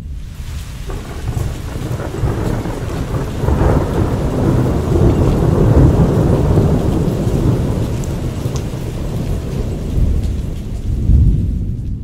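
Rolling thunder with its bass boosted by EQ: one long deep rumble that swells to its loudest around the middle, eases, then surges again near the end.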